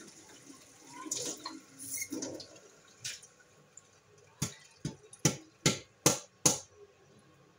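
Water splashing as a stainless steel bowl is rinsed in a metal sink, then a quick run of about seven sharp knocks a little over halfway through as the bowl is handled and knocked at the sink.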